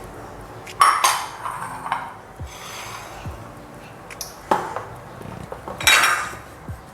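Metal kitchenware clattering: a mixer-grinder jar, spoon and plate knocking together in a few sharp clinks. The loudest come about a second in and again around six seconds in.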